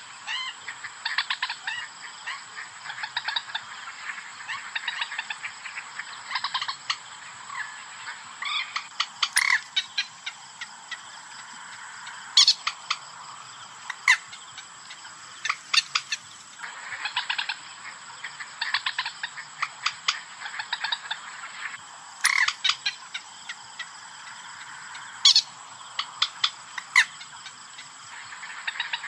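Recorded common moorhen calls used as a hunting lure: bouts of rapid clucking and croaking, broken every few seconds by a single loud, sharp call.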